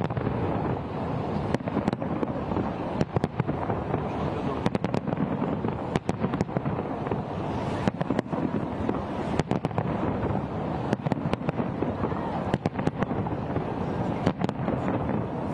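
New Year fireworks exploding: many sharp, irregularly spaced bangs and crackles over a constant din.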